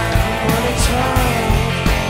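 Live rock band playing: electric guitars over a steady drum beat, with notes that bend in pitch.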